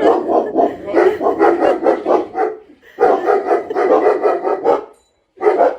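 A dog barking in fast runs of short, pitched barks: two long bouts, then a short burst near the end after a brief pause.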